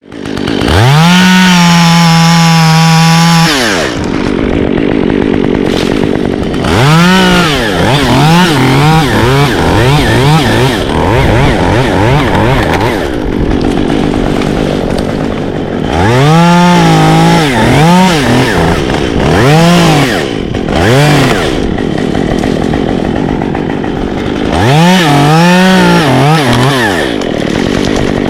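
Two-stroke chainsaw running. It is held at full throttle for about three seconds near the start, then revved up and let back down in repeated short bursts, dropping to a lower running speed in between.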